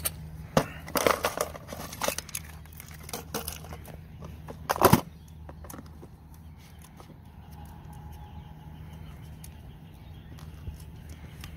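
Plastic tackle box being handled: small metal tackle clicking and rattling in the tray compartments, then the lid shutting with a loud knock about five seconds in. A low steady hum runs underneath.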